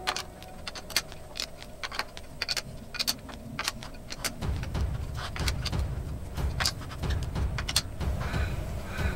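Sharp metallic clicks, unevenly spaced, of a hex key working the socket-head bolts that fasten a four-jaw chuck to its steel back plate. About four seconds in, a low rumble starts and runs on under them.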